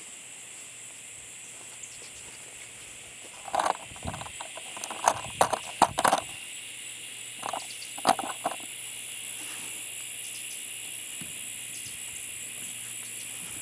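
Clamp-on rifle bipod being handled and wiggled on the barrel, giving a cluster of short clicks and knocks midway through as it is checked for movement, over a steady high hiss.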